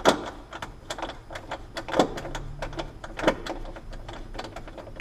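Irregular small clicks and taps of hardware being handled while a cabinet door's double roller catch is swapped out, with three louder knocks: one at the start, one about two seconds in and one a little after three seconds.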